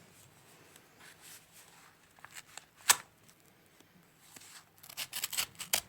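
Paper envelope being handled and opened: scattered soft rustles, one sharp click about halfway through, and a quick run of paper rustling and tearing near the end.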